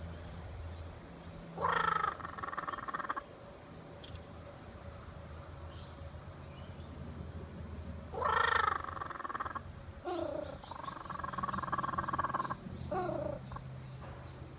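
Kookaburra making low, throaty calls like clearing its throat. There is one call of about a second and a half, then after a pause a longer run of calls starting about eight seconds in and ending near the end, some sliding down in pitch.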